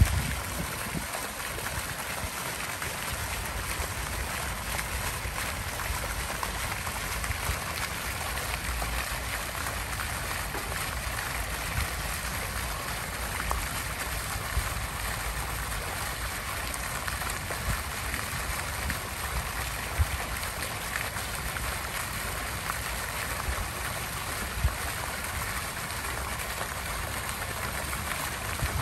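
Steady rushing noise with a low rumble underneath and a few faint knocks.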